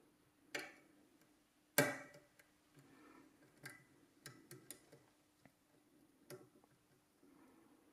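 Lock pick working the pin stack of a 5-pin Yale night latch cylinder, giving scattered small metallic clicks and ticks. Two louder clicks come in the first two seconds, the second the loudest, followed by lighter irregular ticks.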